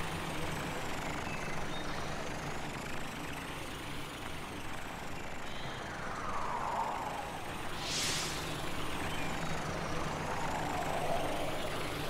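Cartoon truck engine running steadily as the animated fire truck drives along, with two whooshing sweeps a few seconds apart.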